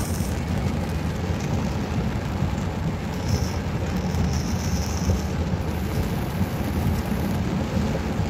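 Heavy rain beating on a car's roof and windshield, heard from inside the cabin, over a steady low rumble.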